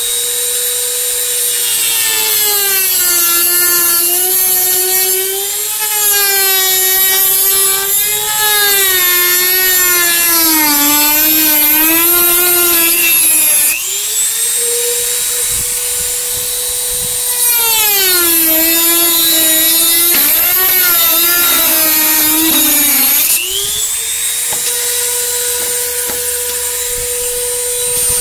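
Cordless Dremel rotary tool with a cut-off disc cutting through a plastic fender flare. A steady high whine drops in pitch and wavers while the disc bites into the plastic and rises back to its free-running pitch whenever the cut eases off, twice in the middle.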